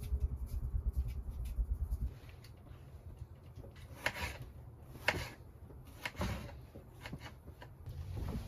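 A low rumble that stops about two seconds in, then a few short rubbing sounds about a second apart, with small clicks.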